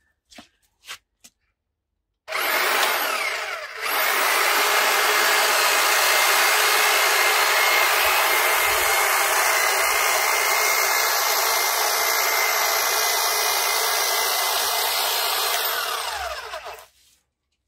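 Titan long-reach hedge trimmer running. Its motor spins up with a rising whine a couple of seconds in, dips briefly and picks up again, runs steadily, then winds down with a falling whine and stops about a second before the end.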